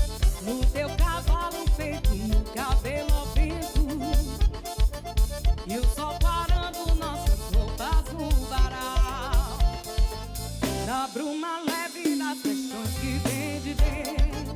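Live band music with a steady kick-drum beat about twice a second under a wavering melody line. The bass and drums drop out briefly about eleven seconds in, then the beat comes back.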